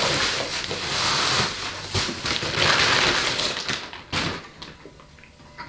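Bubble-wrap packaging rustling and crinkling as it is pulled off a motorcycle exhaust muffler, with a couple of sharp knocks; the rustling stops about four seconds in.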